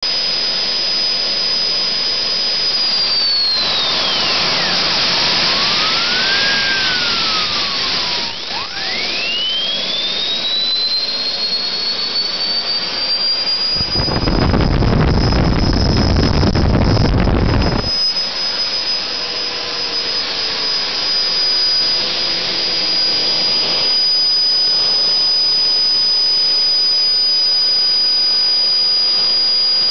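Model turbojet engine starting on a test bench: a high whine falls in pitch a few seconds in, then a whine rises steeply from about eight seconds in as the engine spools up. A loud rushing noise follows for about four seconds, and the engine then settles into a steady high-pitched whine at idle.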